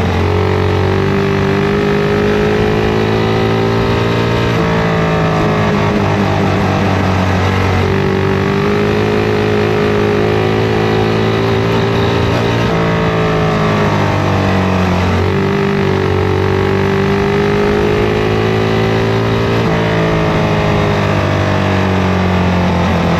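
Racing kart engine running hard around a dirt oval, heard onboard. Its pitch climbs along each straight and drops back into each turn, every four to five seconds.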